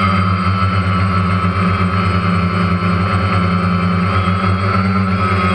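Multirotor drone's electric motors and propellers humming steadily, heard from the drone's own camera.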